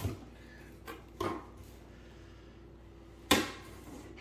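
Handling noises from a cardboard shipping box being cut open: a couple of light knocks about a second in, then one sharp, louder knock about three seconds in.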